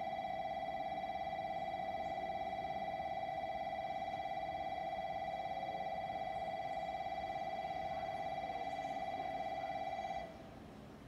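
Japanese station platform's electronic train-passing warning bell ringing continuously with a fast trill, the signal that a non-stopping train is about to pass through. It cuts off suddenly about ten seconds in.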